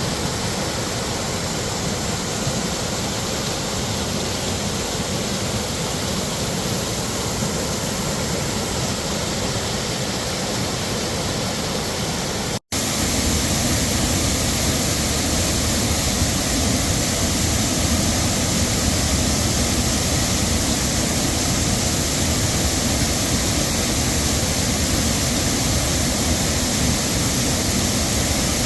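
Heavy waterfall: a steady, dense rush of falling water. About twelve seconds in it drops out for an instant and comes back slightly louder and fuller in the low end.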